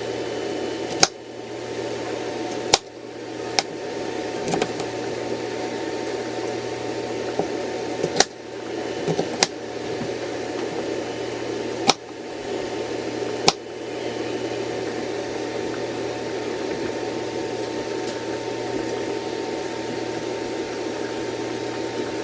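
Steady whirring of a running air fryer's fan. About seven sharp knocks and clicks are spread over the first half, and it is steady after that.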